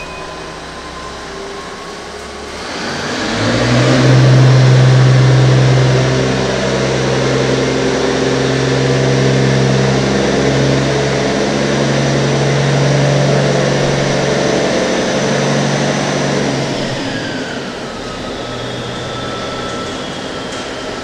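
100-ton mining dump truck's diesel engine revving up about three seconds in and held high to drive the hydraulic hoist as the loaded body tips up to dump iron ore. Near the end the engine drops back and a whine falls in pitch.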